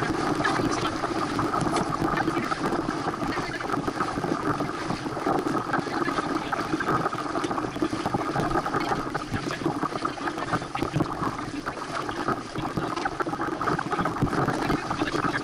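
Water rushing and splashing along the hull of a Santana 525 sailboat under sail, mixed with wind noise, as a steady unbroken wash.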